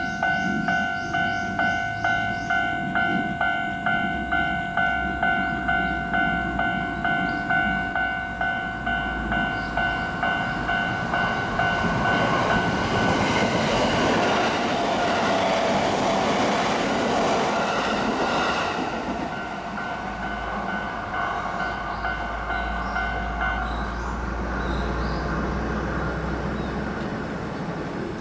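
Japanese level-crossing warning bell ringing in a rapid, steady run of electronic dings, about two to three a second. Midway a train passes through the crossing with a rush of rumble and wheel clatter, and the bell stops about 24 seconds in while a low rumble fades away.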